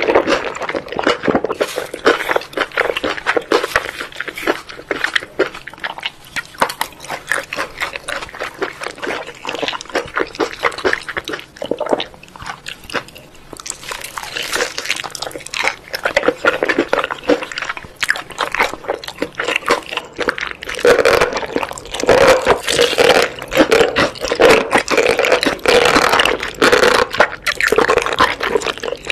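Close-miked ASMR eating sounds: wet chewing, lip smacking and bites in a dense, uneven run of clicks and squelches.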